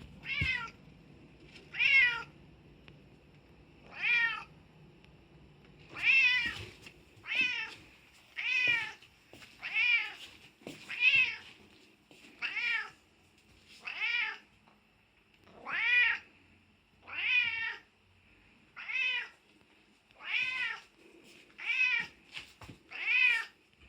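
Bengal cat meowing over and over, about sixteen meows each rising then falling in pitch, one every second or two.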